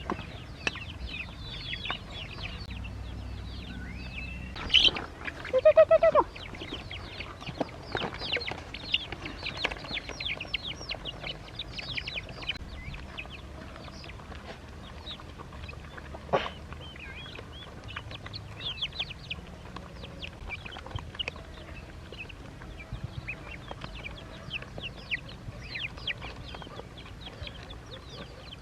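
Young poultry peeping continuously in many short high chirps. About five seconds in there is a louder, lower call with a few quick pulses, and a single sharp click near the middle.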